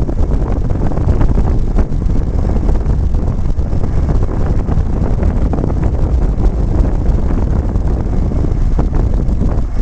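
Marflex XN 1600 sprayer's engine running steadily under heavy wind rumble on the microphone while its boom hydraulics fold the boom.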